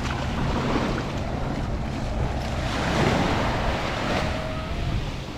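Sea waves washing up on a sandy beach, one wave swelling louder about three seconds in, with wind buffeting the microphone.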